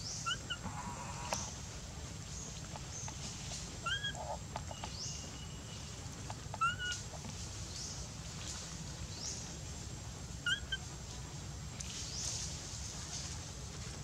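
A baby long-tailed macaque giving short rising-and-falling coo calls, four times over several seconds.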